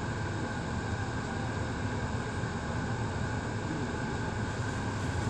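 Steady road traffic noise from slow-moving cars passing close by, with engine rumble and tyre noise and a faint constant high tone running through it.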